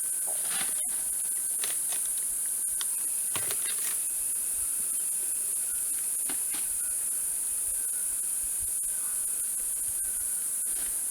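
Steady high-pitched drone of a rainforest insect chorus, with a fainter steady tone below it and a few faint scattered clicks.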